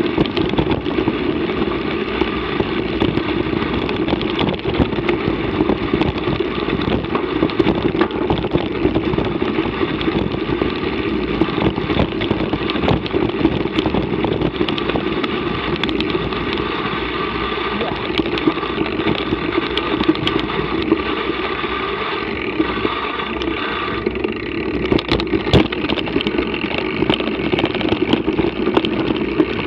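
A mountain bike ride over a rough dirt trail, heard through an action camera: a steady rumble of wind and tyres, with frequent sharp rattles and knocks as the bike jolts over the ground.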